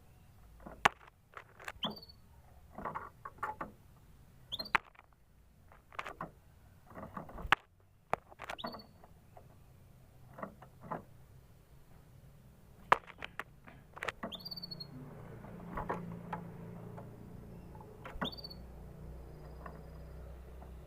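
Canary giving single short rising chirps every few seconds, among scattered clicks and taps; it is not singing a full song.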